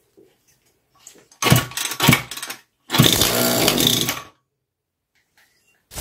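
Small air-cooled single-cylinder engine, fed gas from a homemade hydrogen cell, firing in two short runs. The first is a sputtering burst of about a second; the second is a steadier run of about a second and a half whose pitch rises and falls. Each run cuts off abruptly.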